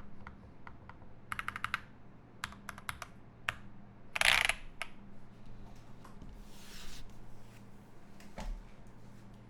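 Typing on a GMMK Pro mechanical keyboard with lubed Alpaca linear switches in an aluminium plate: scattered keystrokes, a quick run of keys about a second and a half in, and a louder, longer clatter about four seconds in.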